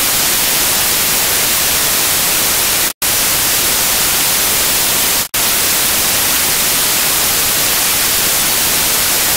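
Loud steady static hiss, like white noise from a detuned TV, starting abruptly and cutting out for an instant twice, about three seconds in and again about two seconds later.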